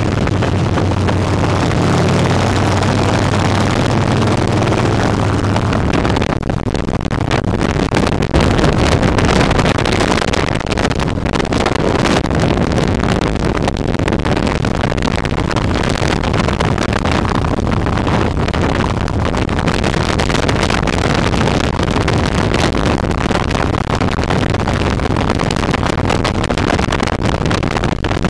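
Motorcycle engine running at a steady cruising speed, its low drone clear and even inside the road tunnel for about the first six seconds. After that, out in the open at highway speed, rough wind buffeting on the microphone covers most of the engine.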